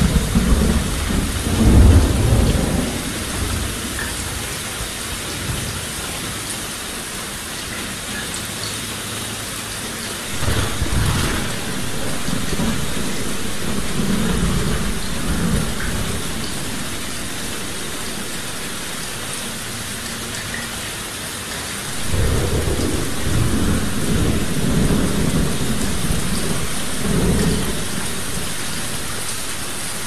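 Heavy rain falling steadily, with rolling thunder: one long rumble at the start, another starting suddenly about ten seconds in, and a third about twenty-two seconds in, each rolling on for several seconds.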